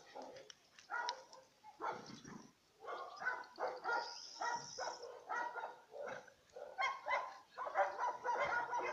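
Dog barking and yipping repeatedly, two or three short barks a second in runs with brief pauses between them.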